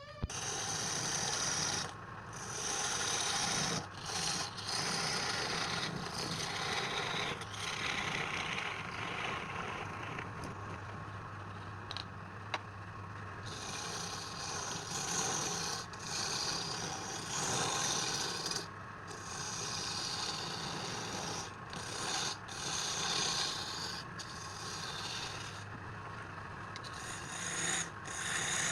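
Wood lathe with a turning tool cutting or scraping a spinning wood blank: a continuous rasping noise over a faint motor hum, broken by short gaps every few seconds.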